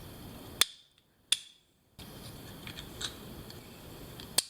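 Three sharp clicks over a steady low hiss, the second coming out of a second or so of dead silence.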